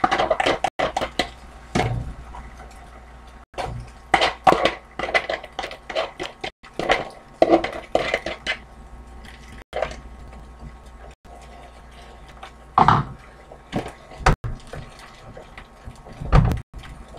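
Light kitchen clatter as beaten egg is poured from a plastic mixing bowl into a small nonstick frying pan: scattered clicks and knocks of the bowl and utensils against the pan.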